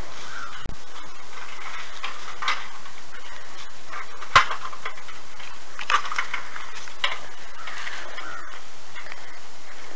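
Aluminium stepladder being handled and set down on grass, with one sharp metal knock about four and a half seconds in and a couple of lighter knocks later, over a steady hiss.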